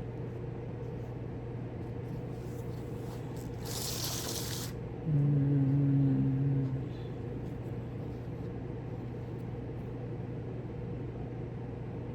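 A steady low electrical hum runs underneath. About four seconds in there is a brief hiss, and just after it a louder low steady hum-like tone lasts under two seconds.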